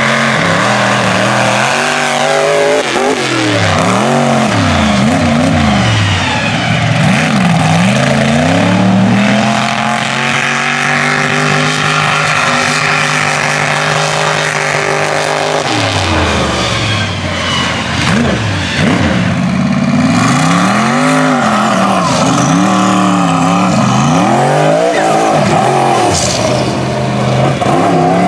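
Mega truck engine running hard as the truck drives an obstacle course on dirt, the revs swooping up and down again and again as the throttle is worked. In the middle there is a longer steady high-rev stretch.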